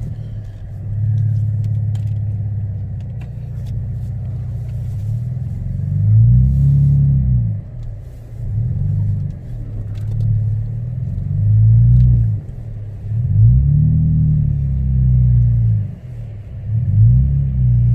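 Car engine heard from inside the cabin, revving up and falling back about six times in short pushes of the throttle while backing up in snow.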